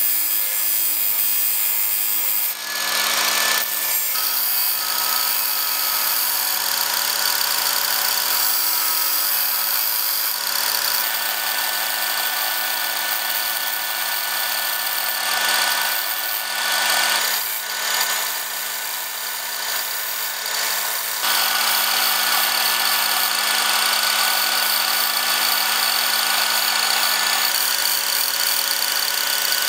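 Electric disc grinder running steadily while a steel knife blade is ground against its abrasive disc: a motor hum under a gritty grinding rasp. The rasp changes abruptly several times, dipping in level a little after the middle and coming back louder near two-thirds of the way through.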